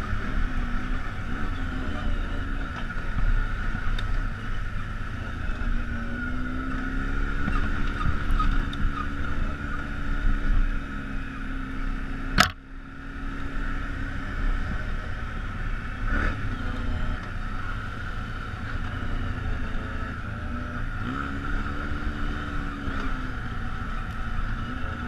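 ATV engine running under throttle over rough rocky trail, its pitch rising as it revs up a couple of times, with a steady whine alongside. A single sharp knock sounds about halfway through.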